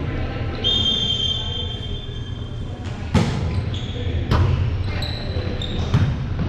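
A volleyball rally on a hardwood gym floor: shoes squeaking on the floor in the first half, then three sharp hits of the ball about a second apart, with players' voices.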